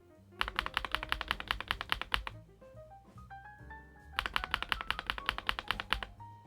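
Fast typing on a Kzzi K98 mechanical keyboard, with leaf-spring-mounted plate and PBT keycaps. Two quick runs of keystrokes, about ten a second, are separated by a short pause, over soft background music.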